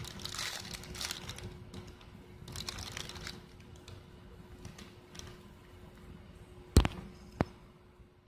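Clear plastic bag crinkling as it is handled, then two sharp knocks about half a second apart near the end. A faint steady hum underneath.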